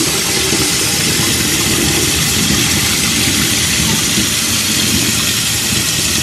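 Kitchen faucet running steadily into a stainless steel sink, with rinse water splashing and draining from a rice-cooker pot while the rice is washed.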